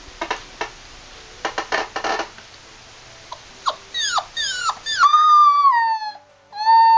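A dog calling: first scattered clicks and rustling, then a few short yips that drop in pitch, then two long, drawn-out howling whines near the end.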